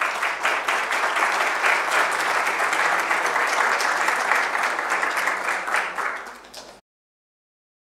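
Audience applauding: dense, steady clapping that thins out after about six seconds and then cuts off abruptly.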